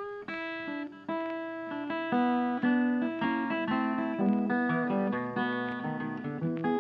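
Background music: an acoustic guitar picking a melody in separate plucked notes, each sounding and fading.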